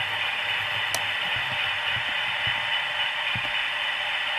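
Sound-fitted model Class 60 diesel locomotive playing its Howes DCC engine-idle sound through the model's small speaker: a steady hum, with a single click about a second in.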